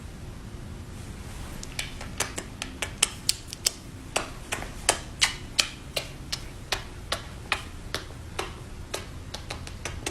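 A run of sharp, uneven clicks or taps, about three a second, starting just under two seconds in, over a low steady hum.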